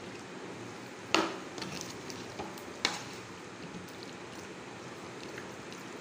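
Metal spoon stirring chicken pieces in a thick, wet besan batter in a bowl, with two sharp clinks of the spoon against the bowl, about a second in and near three seconds, and a few lighter taps. A steady hiss runs underneath.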